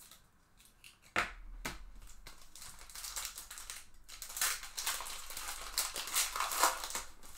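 Foil wrapper of a Bowman baseball card pack being torn open and crinkled by hand: a sharp crackle about a second in, then continuous irregular crinkling and tearing of the foil.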